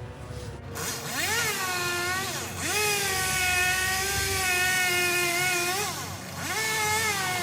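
Chainsaw engine revving at high throttle: it rises in pitch about a second in, holds a steady high whine, and dips and climbs back twice.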